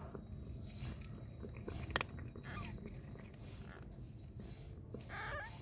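Faint soft crinkling and small clicks as newborn kittens crawl on newspaper, with one sharp click about two seconds in and a short, high, wavering mew from a newborn kitten near the end.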